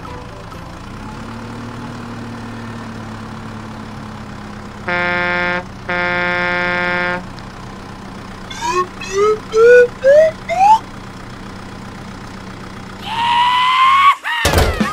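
Cartoon vehicle sound effects: a steady low engine hum, with two long horn honks about five and six seconds in. These are followed by five short rising whistle-like chirps, and near the end a loud wavering tone.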